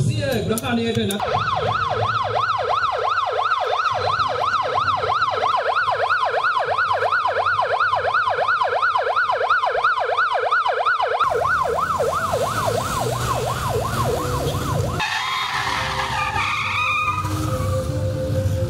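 Ambulance siren in fast yelp mode, its wail sweeping up and down about four times a second for about ten seconds, then cutting off. Vehicle noise follows near the end.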